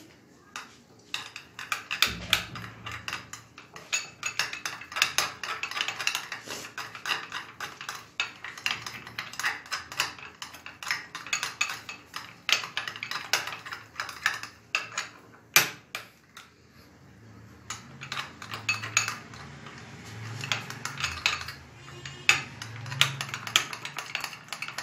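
Metal spoon clinking and scraping against a small glass bowl as a thick sauce is stirred fast, a dense run of quick ticks and clicks with a brief pause partway through.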